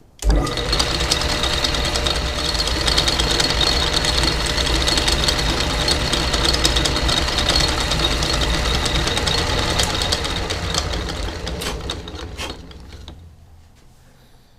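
Lathe switched on, its motor running steadily with a low hum and a dense rattling clatter, then switched off and winding down over the last couple of seconds.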